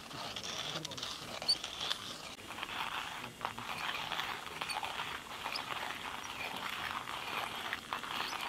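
Footsteps crunching and rustling on dirt ground strewn with dry fallen leaves, a continuous scuffing crackle that cuts off abruptly near the end.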